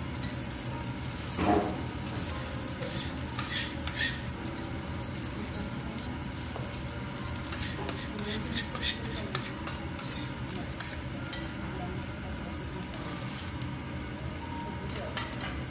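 Kuroge Wagyu beef and vegetables sizzling on a steel teppanyaki griddle in a steady hiss. A metal spatula clicks and scrapes against the plate a few times, in small clusters.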